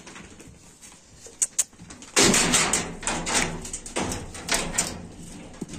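Puppies jostling against the phone: a couple of small clicks, then from about two seconds in a loud stretch of rubbing and knocking on the microphone that lasts about three seconds.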